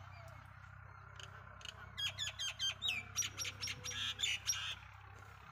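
A bird calling in a rapid run of sharp, sweeping chirps for about three seconds, starting about a second and a half in, over a steady low hum.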